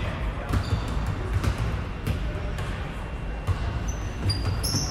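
Basketball bouncing on a gym floor several times at an uneven pace, with a few short sneaker squeaks near the end as players move for the rebound.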